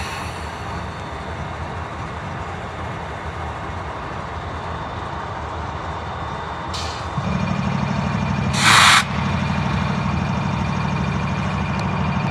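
Union Pacific diesel-electric locomotives running as they back slowly through the yard. A little over halfway through, the engine sound grows louder with a steady low hum, and a second later a short, loud burst of air hiss comes from the train's air brakes.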